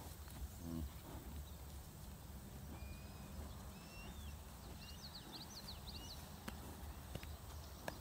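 Faint pasture ambience: a steady low rumble under a run of short high chirps and whistles from small birds in the middle, with a brief low sound near the start and a couple of soft ticks near the end.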